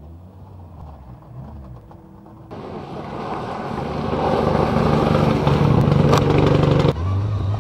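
A low engine drone at first. About two and a half seconds in, it changes abruptly to a Mitsubishi Lancer Evolution rally car's turbocharged four-cylinder engine at full power on a gravel stage, growing louder as the car approaches, with a hiss of spraying gravel. Near the end it cuts off sharply to another car's lower, steady engine note.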